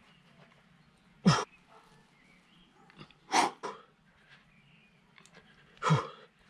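A man's forceful exhalations from exertion during push-ups, three short sharp puffs about two seconds apart, with a faint grunt in the voice.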